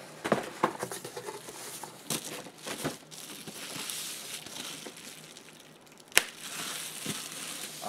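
Packaging crinkling and rustling in irregular bursts as it is handled and opened, with a sharp click about six seconds in.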